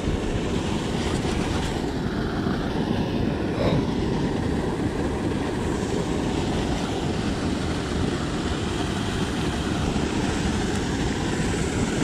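Steady rush of water pouring from a spillway outfall pipe into a creek pool, an even roar with no breaks.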